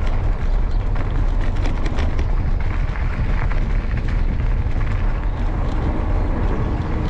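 Mountain bike rolling along a canal towpath, heard from a bike-mounted camera: steady wind rumble on the microphone with frequent small clicks and rattles from the tyres and bike.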